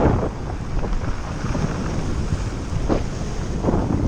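Wind buffeting the microphone over the wash of surf on a rocky shore, with a couple of short louder gusts near the end.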